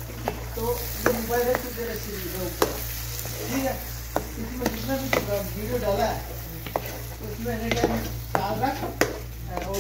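A spatula stirring blended spinach into fried onions in a frying pan, with sizzling and many sharp clicks and scrapes of the spatula against the pan.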